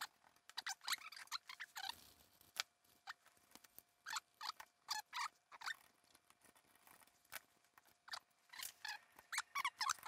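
Scattered short squeaks and light clicks from handling a Roland TR-606 drum machine. The squeaks come mostly in the first couple of seconds, as a swab rubs on the circuit board, with sparser squeaks and clicks later as the plastic top case is fitted back over the board.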